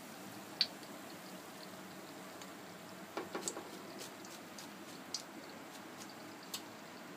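Hot frying oil in a wok giving a faint, steady sizzle as just-fried potato fries are held over it in a wire spider strainer to drain, with a few scattered sharp crackles.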